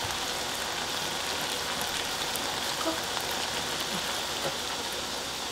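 Steady sizzling hiss of a potato and shishito-pepper braise simmering in its sauce in a frying pan, with faint scattered crackles.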